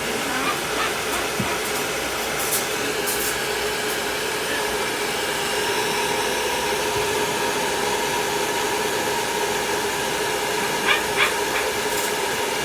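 Hair dryer running steadily on its blower, a constant rush of air with a steady whine in it, being used to dry a cat. Two short clicks sound about eleven seconds in.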